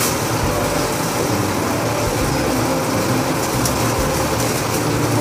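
Steady mechanical hum with a hiss, unbroken and even in level.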